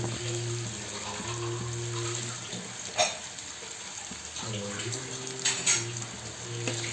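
Freshly chopped onions sizzling in hot mustard oil in a pan, a steady frying hiss, with a single light click about three seconds in.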